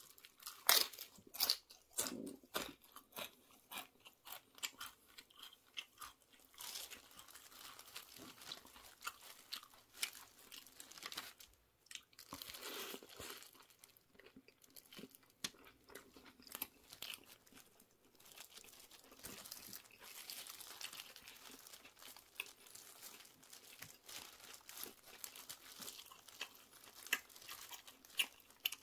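Close-miked crunching and chewing of tortilla chips, with sharp crisp crunches loudest in the first few seconds, then steady chewing with smaller crackles.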